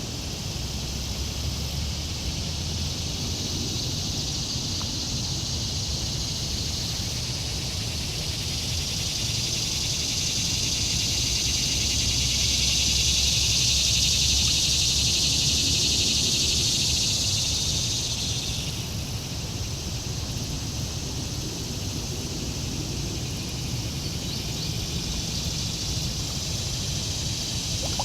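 A steady, high insect chorus, like cicadas, over a low rumble. It swells louder about a third of the way in and drops back suddenly about two-thirds through.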